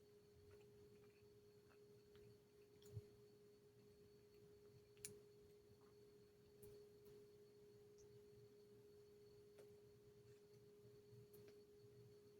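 Near silence: room tone with a faint steady hum, and a couple of faint clicks about three and five seconds in.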